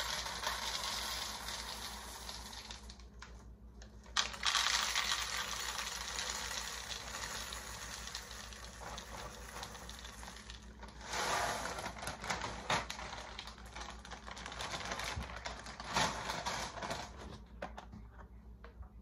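Dry puffed-wheat cereal poured from a crinkly plastic bag into plastic bowls: a rattling patter of puffs landing, in a few long pours with a short pause between them.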